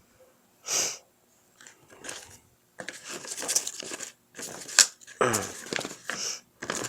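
Paper and plastic packaging of a CD booklet being handled, rustling and crinkling: a brief rustle about a second in, then a run of sharp crackles and clicks from about three seconds in.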